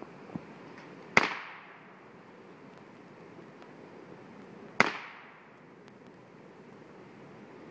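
Two single gunshots from an MP5 A5-pattern gun, about three and a half seconds apart, each followed by a short echo dying away.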